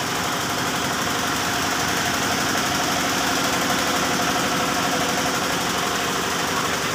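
Yanmar TF105R single-cylinder diesel engine running steadily, belt-driving a two-cylinder piston air-compressor pump on test, a rapid even chugging.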